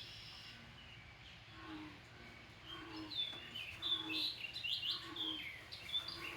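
Wild birds chirping and singing, picking up about a third of the way in. Under them runs a string of short, deep, repeated calls that the recordist thinks are frogs.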